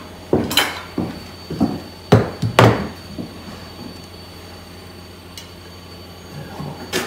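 Knocks and metallic clunks from handling a set of over-under shotgun barrels: a quick run of about seven strikes over the first three seconds, the sharpest about half a second in and near three seconds, then little more.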